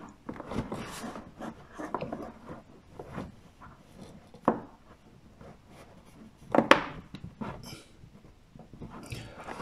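Hands handling a clear plastic spout fitting in a hole cut in a black plastic drum: soft rubbing on the plastic and light clicks, with a sharp click about four and a half seconds in and a louder knock near seven seconds.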